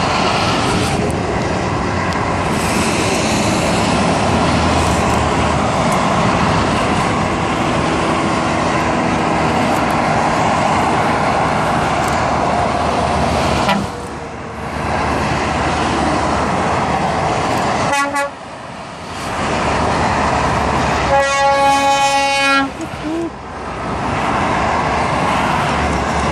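Heavy trucks of a convoy passing close by on a motorway, a steady rush of engine and tyre noise. Horns sound in the second half: a short blast, then a longer one of about a second and a half a few seconds later.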